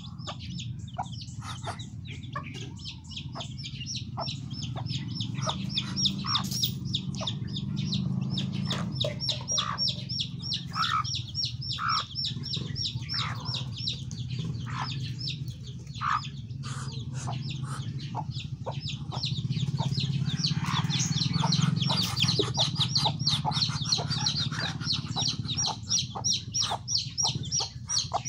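Hen clucking in short calls while her chicks peep rapidly and continuously in high notes, over a low steady hum.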